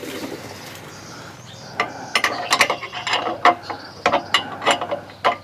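Hand ratchet wrench clicking in quick, irregular runs as a bolt is worked, starting about two seconds in.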